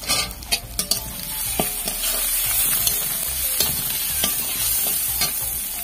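Onion and spice masala sizzling in hot oil in a kadai while a utensil stirs it, with a steady frying hiss and a sharp click against the pan every second or so.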